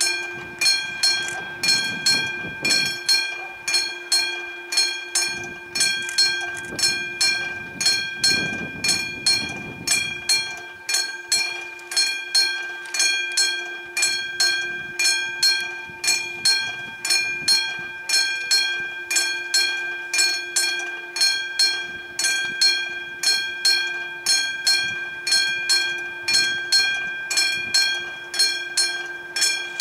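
Level-crossing warning bell, a classic mechanical bell, ringing steadily at about two strokes a second while the crossing is closed for an approaching train. A low rumble rises under it twice in the first ten seconds.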